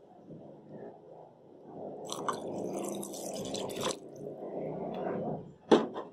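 Milk pouring into a steel pan of hot cooked grated bottle gourd: a wet pour that gets louder about two seconds in and dies away near the end. A single sharp knock follows near the end.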